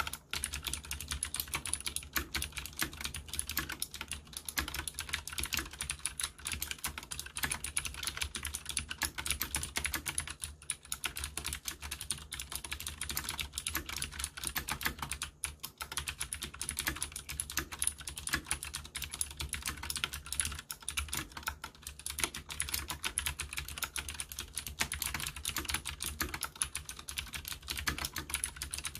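Leopold FC750R mechanical keyboard with clicky Cherry MX Blue switches being typed on quickly and continuously: a dense stream of key clicks, broken by brief pauses about 11 and 15 seconds in.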